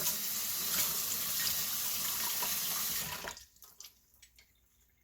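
Water from a kitchen tap running into a sink in a steady stream, shut off a little over three seconds in. Faint drips and small clicks follow.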